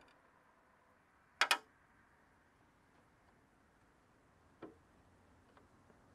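Knipex all-plastic snipe nose pliers working parts in an electrical panel: one sharp double click about a second and a half in, then a fainter click and a faint tick later on.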